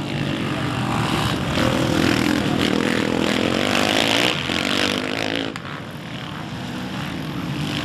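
Racing quad (ATV) engine running at high revs, loudest in the first half. About five and a half seconds in it drops off suddenly, and then engine noise builds again.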